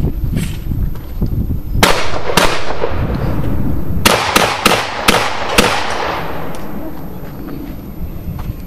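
Shotgun firing: two shots about half a second apart, then a quick string of five over about a second and a half, each with a short echo.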